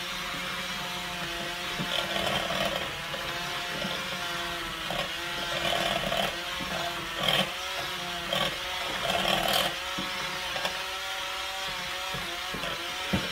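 Pampered Chef Flex+ cordless hand mixer running with its beaters in a bowl of cooked chicken breast, shredding the meat. The motor's steady whine sags and bends in pitch at times as it takes the load, with a few short bursts of clatter from the beaters and chunks.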